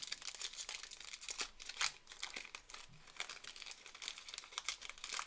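Trading card pack wrappers being torn open and crinkled by hand, a dense run of small crackles and clicks.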